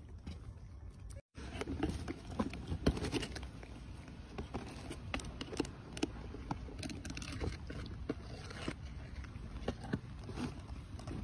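A young macaque eating a piece of bread: scattered small clicks and crunches of chewing and handling the food. The sound cuts out briefly about a second in.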